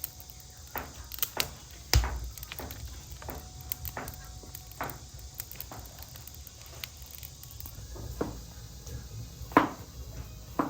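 A series of irregular knocks and clicks, about one or two a second, with a louder knock about two seconds in and another near the end.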